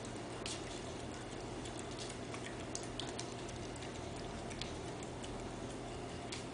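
A pet eating chunks of meat from a plate: soft, irregular chewing clicks over a steady low hum.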